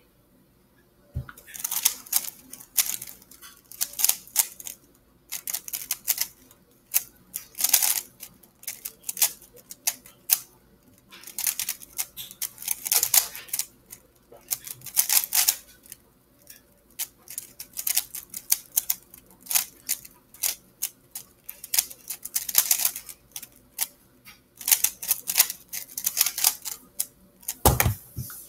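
3x3 Rubik's Cube being turned in bursts of rapid plastic clicking, broken by pauses of about a second: choppy turning with poor look-ahead. There is a low thump about a second in and another near the end.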